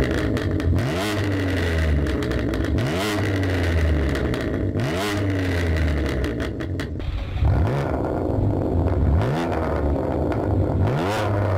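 A 2019 BMW M2 Competition's twin-turbo straight-six, fitted with an Armytrix decat valved exhaust, is blipped repeatedly in free revs. There are about six revs, each rising then falling back, with sharp crackles around several of the rev peaks.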